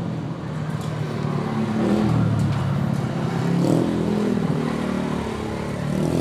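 An engine running, its pitch rising and falling as if being revved.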